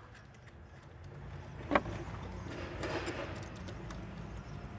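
A sharp metal click a little under two seconds in, then faint irregular ticking and scraping as a 15 mm alternator mounting bolt is worked out.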